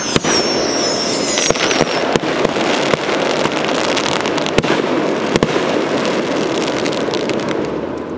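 Fireworks going off in quick succession: a high wavering whistle that falls away over the first two seconds, then a steady run of pops and crackles with a few sharper bangs, over a continuous rushing noise.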